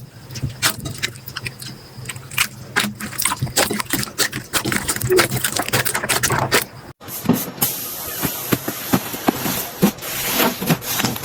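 Slime being squished and poked by hand, giving a dense run of sticky clicks, pops and crackles. About seven seconds in the sound cuts briefly and a different slime clip follows, with more hiss under the crackling.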